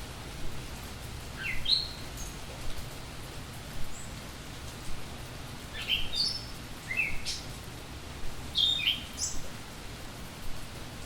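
A songbird chirping in three short phrases of quick, sharply sliding high notes, about a second and a half in, around six to seven seconds and near nine seconds, over a steady hiss of falling rain.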